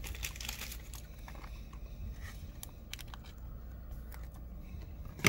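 Trading cards being handled and slid against each other: soft rustling in the first second, then a few light clicks, ending with one sharper knock.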